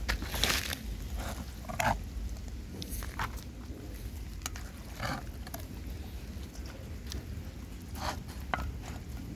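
Several dogs eating from bowls, with irregular chewing and slurping and scattered clinks and knocks against the bowls.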